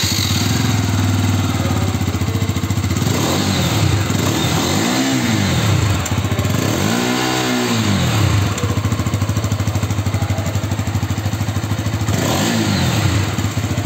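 Bajaj Pulsar RS 200's 199.5 cc single-cylinder, liquid-cooled engine idling through its stock underbelly exhaust, with four quick throttle blips. Each blip makes the revs rise and fall back to idle, and the third is the highest.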